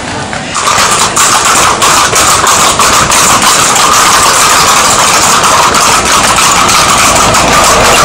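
Horses' hooves clattering on cobblestones, many short sharp knocks, over a loud steady drone like an engine running that starts about half a second in.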